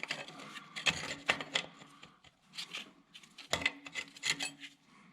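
Metal parts and hand tools clinking and knocking in irregular clicks while a tractor's hydraulic fitting is handled during disassembly, with a faint low hum underneath.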